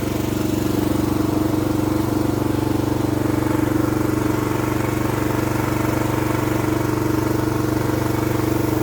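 The 6.5 HP engine of a 200-bar pressure washer runs steadily at a constant speed, with a fast, even firing pulse.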